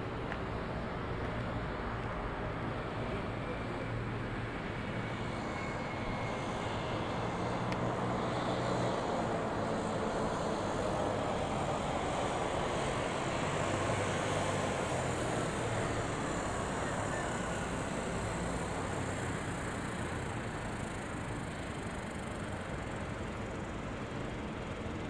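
A steady wash of distant engine and traffic noise, swelling to its loudest about halfway through and easing off again.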